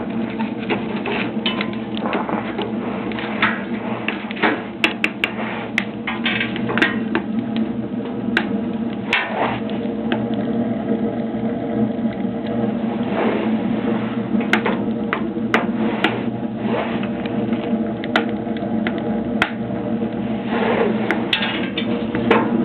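Wood fire burning in a small homemade burzhuika stove, crackling with many irregular sharp pops over a steady background noise.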